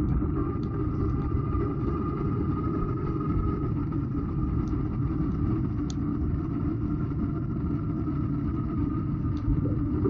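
Steady low rumble of wind and tyre noise picked up by a camera riding along on a bicycle, with a few faint ticks.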